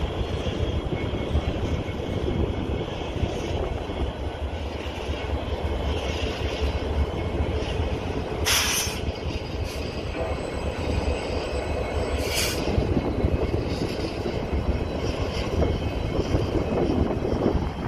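Illinois Central diesel-electric freight locomotive running, a deep, steady engine sound with wheels on rail as it moves slowly by. Two short bursts of hiss cut in, one about eight and a half seconds in and one about twelve seconds in.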